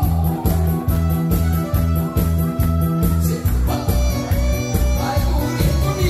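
Loud upbeat music over a stage sound system, with a steady heavy bass beat; a singing voice comes in about halfway through.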